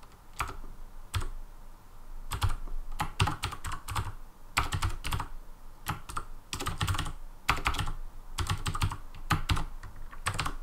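Typing on a computer keyboard: uneven runs of key clicks with short pauses between them.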